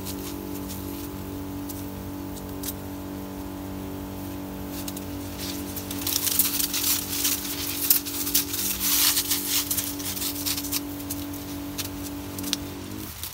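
Dry and green sugarcane leaves rustling and crackling as they brush past the microphone, loudest in the middle. Under it runs a steady hum at a fixed pitch that cuts off shortly before the end.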